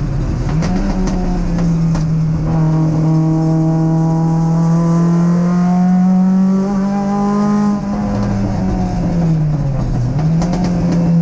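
Triumph TR7 Sprint's 16-valve Dolomite Sprint slant-four race engine under hard acceleration, heard from inside the stripped cabin. The revs dip and recover just after the start, hold and climb slowly, then fall away about nine seconds in before picking up again.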